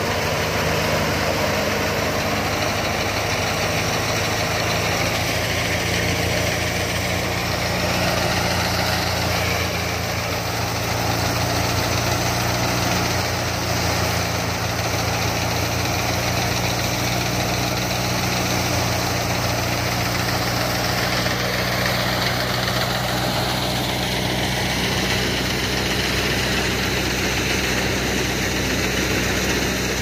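Tractor-powered wheat thresher running steadily as wheat is fed into it, over the tractor's diesel engine holding a steady speed.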